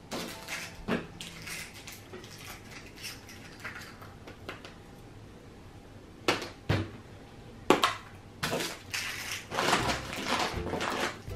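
Plastic Easter eggs and small candies being handled on a table: a few sharp clicks and knocks of hard plastic, then a spell of rustling and clattering from about eight seconds in.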